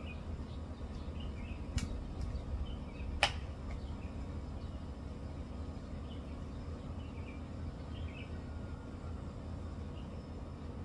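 Two sharp mechanical clicks about a second and a half apart, the second louder, as the Greyhound Leviathan PCP air rifle is handled while the shooter settles in to aim, over a steady low hum.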